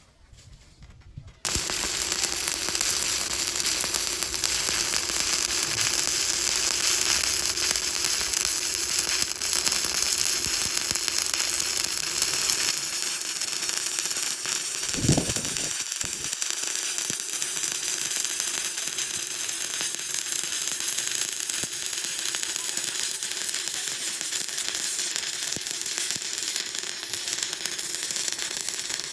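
Stick (SMAW) welding arc struck about a second and a half in, then crackling and sizzling steadily as the rod burns along the plate. There is a brief low thud about halfway through.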